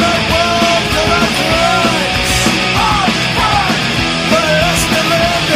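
Recorded punk rock song from a full band, with a melody line sliding up and down in pitch over the dense, loud backing.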